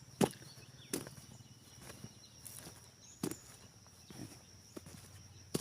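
A series of irregular sharp knocks, roughly one a second, over a faint steady high-pitched tone.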